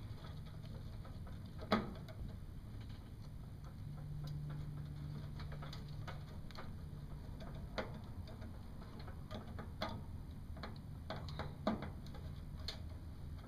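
Faint, scattered clicks and taps of a screwdriver and wires against the terminal block of a mini-split outdoor unit as wire connections are tightened, over a low steady hum.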